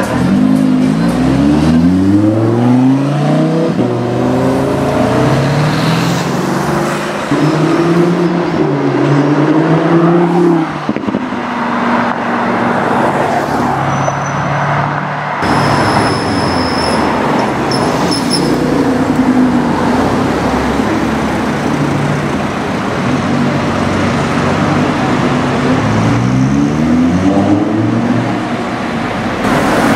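Lamborghini Huracan Spyder's 5.2-litre V10 accelerating, its exhaust note climbing steeply just after the start and again near the end, with steadier running between.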